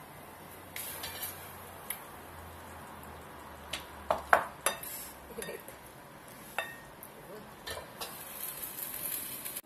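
Spatula scraping and clinking against a wok while the stir-fried vegetables sizzle, with a few sharp clinks, loudest about four seconds in, and the hiss of frying growing near the end.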